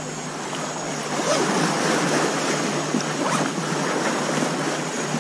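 Waves washing against a rocky shore, a steady rushing that swells a little about a second in.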